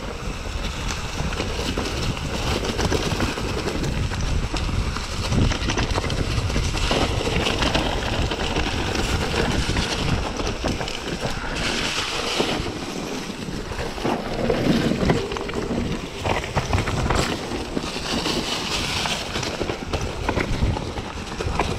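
Wind buffeting an action camera's microphone while a mountain bike rolls over a rocky, gravelly trail, with frequent knocks and rattles as the tyres hit stones.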